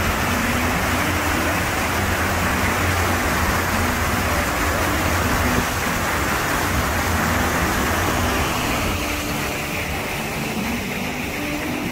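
Small motorboat under way: a steady low engine hum mixed with the rush of water churning in its wake. The sound thins a little near the end.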